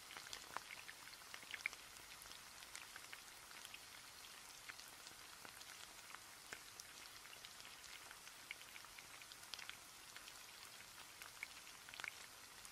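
Faint crackling of cotton candy melting into bubbling sugar syrup on a hot waffle iron's plate: scattered small pops over a soft hiss.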